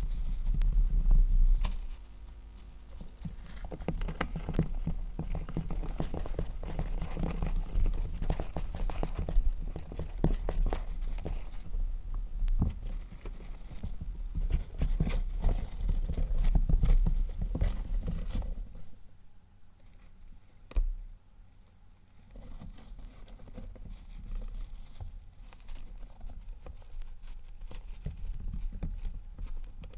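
Hamster rustling and scratching, with crinkling and many quick clicks; quieter for a few seconds about two-thirds of the way through.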